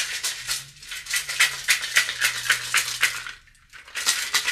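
Large hand-held sun rattle shaken briskly, its filling rattling in quick strokes of about five a second, with a short pause about three and a half seconds in.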